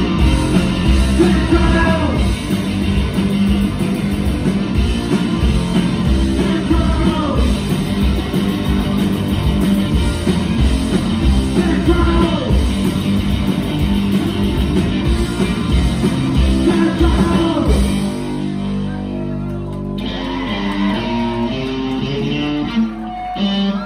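Punk rock band playing live: electric guitar, bass guitar and drums at full volume. About eighteen seconds in the drums stop and the guitar and bass carry on alone, a little quieter.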